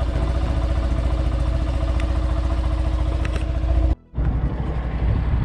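Yamaha FZS motorcycle's single-cylinder engine idling steadily just after starting. After a sudden cut about four seconds in, the bike's engine is heard again with rougher, noisier sound.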